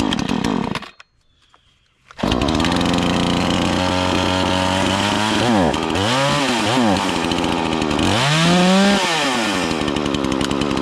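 Bilt Hard TNA 0006 50cc two-stroke chainsaw being pull-started. A short burst on the first pull dies out. About two seconds in it catches and idles, revved up and down several times, with one longer rev near the end, as it warms up.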